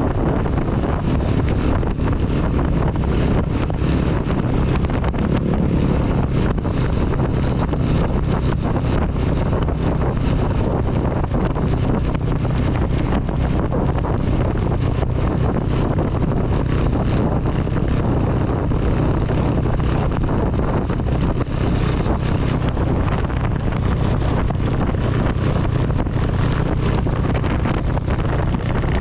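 CB 250 motorcycle engine running at a steady cruise, with heavy wind and rain noise buffeting the camera microphone throughout.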